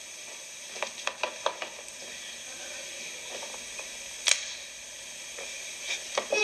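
Steady hiss of a quiet hall with scattered sharp clicks and knocks: a quick cluster about a second in, a single louder knock a little past the middle, and two more near the end.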